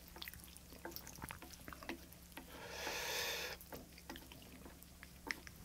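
Close-miked mouth sounds of eating spaghetti: small wet clicks and smacks of chewing, and in the middle one slurp of noodles lasting about a second.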